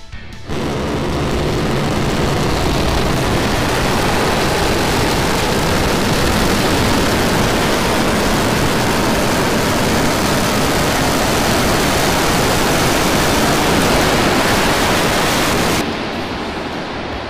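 SpaceX Starship SN10's Raptor rocket engines firing during the landing burn: a loud, steady rocket roar that starts abruptly about half a second in and falls off sharply near the end, around touchdown.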